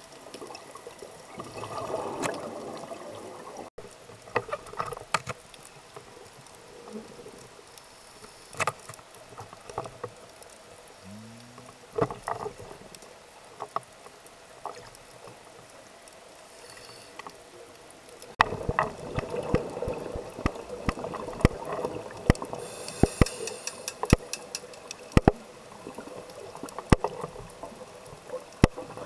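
Underwater sound picked up through a camera's housing: sharp, scattered clicks over a bubbling water rush that swells about two seconds in and again from about eighteen seconds.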